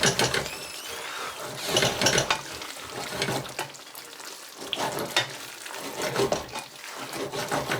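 Food frying and sizzling in a pan while it is stirred, with a steady hiss broken by many small clicks and scrapes of the utensil against the pan.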